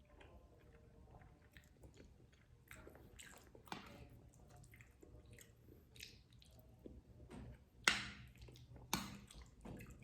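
Close-miked mukbang eating: soft wet chewing and mouth sounds on sticky glutinous rice with durian in coconut-milk sauce. Two sharper, louder sounds come near the end.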